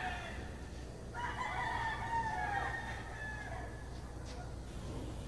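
A rooster crowing, faint: the falling tail of one crow right at the start, then a full crow of about two seconds starting about a second in.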